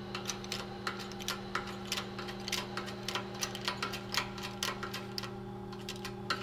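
Hydraulic shop press seating a ball bearing on a pump shaft: a steady hum with irregular light ticks and clicks, several a second.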